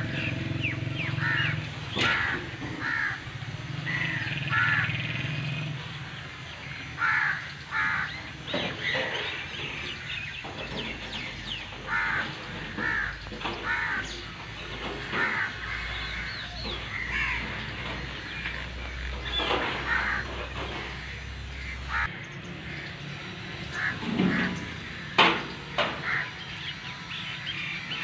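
Birds calling: many short, repeated calls throughout, over a low steady hum that fades after the first few seconds. A single sharp click comes near the end.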